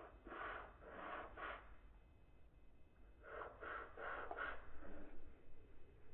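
Marker scratching back and forth on paper while colouring in, in two runs of quick strokes, about three a second, with a pause between them.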